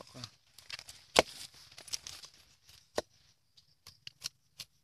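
Machete slicing the rind off a pineapple held on a log: short rasping cuts through the tough skin and a few sharp chops, the loudest a little over a second in and another about three seconds in.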